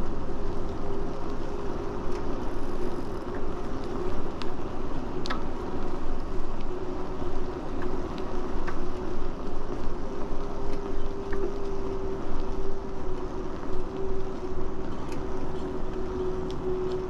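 Riding an electric bike along a paved path: steady rumble of wind on the microphone and tyres on the pavement, with a steady motor whine from the hub motor.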